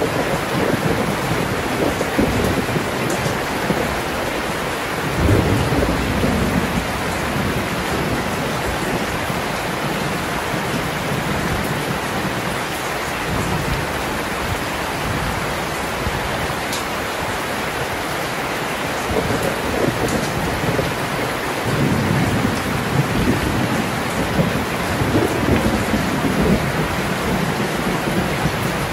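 Heavy rain pouring steadily, with thunder rumbling low several times: loudest about five seconds in, and again in swells through the last third.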